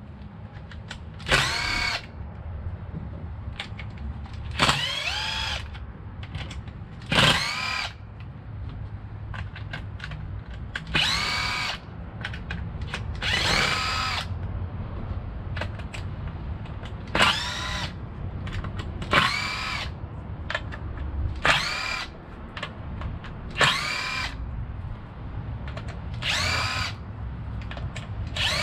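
Cordless electric screwdriver running in about ten short bursts, each whine rising as the motor spins up and falling as it stops, as it backs out chassis screws from an RC truck's front end. A steady low hum runs underneath.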